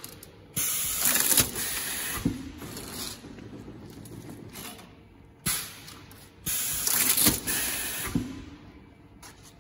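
Automatic cut-to-length machine for narrow sanding belts running two cutting cycles on abrasive cloth: two spells of mechanical noise, starting about half a second in and about five and a half seconds in, each with knocks and a hiss as a piece is cut off.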